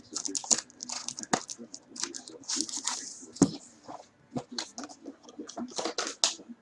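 Crinkling, crackling and tearing of wrapping as a box of trading cards is opened by hand, in a quick irregular string of sharp rustles and clicks.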